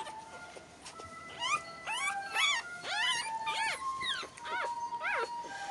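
Newborn Tibetan terrier puppy squeaking and whimpering: a quick series of about ten short, high cries that rise and fall in pitch, starting about a second and a half in.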